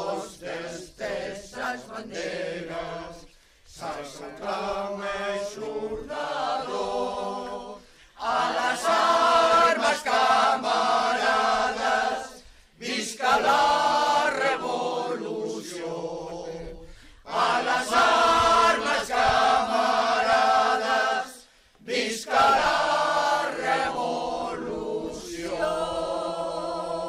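A group of voices singing a song together, unaccompanied, in long held phrases with brief pauses for breath every few seconds.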